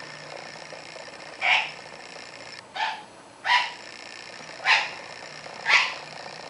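Sun conure giving five short, loud, harsh squawks, roughly one a second.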